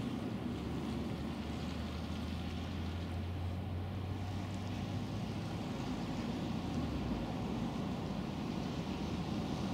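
Distant road traffic: a steady rumble of cars passing, with a low hum that swells and then fades around the middle.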